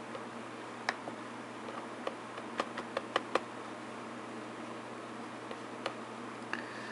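Scattered sharp clicks of a computer keyboard and mouse over a steady hiss, with a quick run of clicks about halfway through. A faint steady tone starts near the end.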